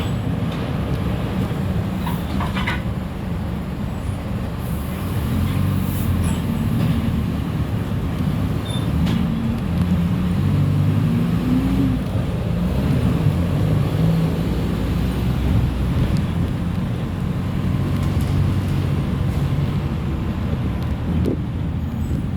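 Mercedes-Benz OF-1418 bus's diesel engine running on the road, heard from on board, its pitch rising and falling as the bus pulls away and changes speed, with a few short clicks.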